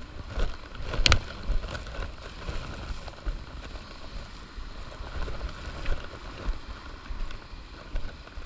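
Walking up a wet rocky trail: irregular footstep thuds and low rumble of the camera moving, over a steady faint hiss, with one sharp click about a second in.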